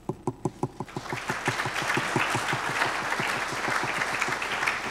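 Audience applauding: a few separate claps at first, filling in to steady applause within about a second.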